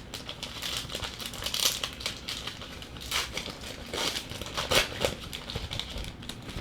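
A trading card pack's wrapper being torn open and crinkled by hand, an irregular crackling with several louder crinkles.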